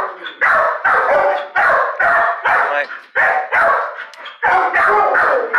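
A dog barking over and over, about two to three barks a second.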